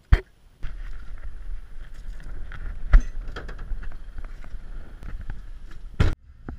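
Footsteps in jandals crunching over wet river stones, with irregular clicks and wind rumbling on the microphone; a short loud knock near the end.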